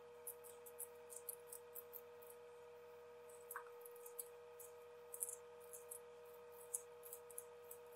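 Hand-held vegetable peeler scraping the skin off a raw potato: short, faint strokes, a few a second, irregularly spaced, over a steady faint hum.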